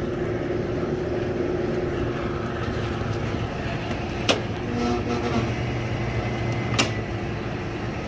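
Steady machinery hum with a constant low tone, broken by two sharp metallic clicks about four and seven seconds in.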